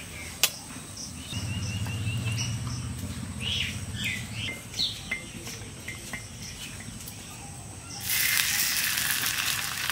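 Birds chirping, with a single sharp tap near the start. About eight seconds in, a loud sizzle starts suddenly as a raw paratha is laid onto hot ghee on an iron tawa.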